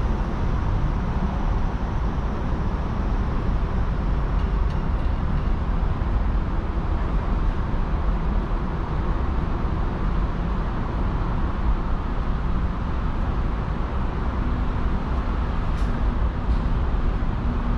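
Steady low rumble of distant city traffic, with no single vehicle standing out.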